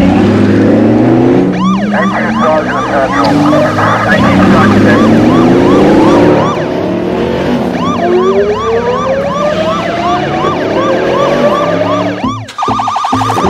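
Police siren sound effect in a fast yelp, sweeping up and down several times a second, over car engines revving up. Near the end it changes to a quicker, even warble.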